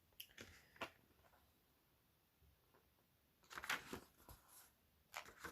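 Faint rustling of a printed instruction manual being handled and its pages turned: a few light clicks near the start, then short bursts of paper rustling about three and a half seconds in and again near the end.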